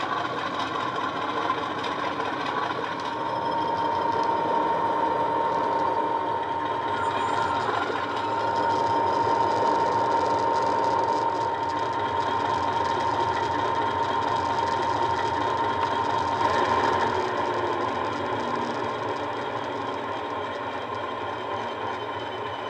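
Sound-equipped Hornby Class 50 model diesel locomotive, its SWD sound decoder playing the Class 50's diesel engine through an EM2 speaker as the model runs under power, with a steady high whine through the middle. The sound falls away near the end as the model draws to a stop.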